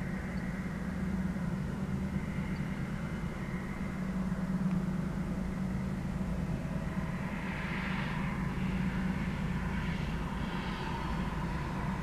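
A steady, distant low engine drone. From about seven seconds in, a hiss swells and fades in waves over it.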